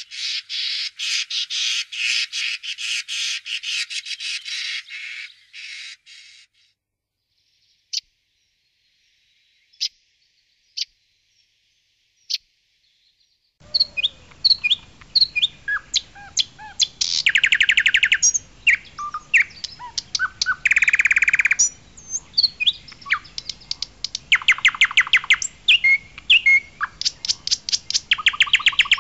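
Songbirds singing: a dense, fast run of chirps for about six seconds, then a few scattered chirps. From about fourteen seconds in, a second bird recording starts, with varied short whistled notes and quick trills over faint background hiss.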